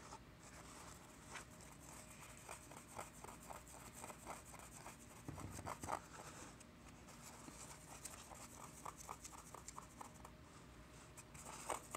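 Thin plastic stirring stick scraping and scratching through a dry powder mix of baking soda and citric acid inside a plastic volcano cone: a faint, irregular series of small scrapes.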